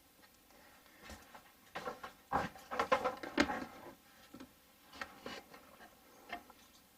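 Wooden upper cabinet doors being handled, a run of light knocks and clicks as they are moved and shut, most of them about two to four seconds in and a few more about five to six and a half seconds in.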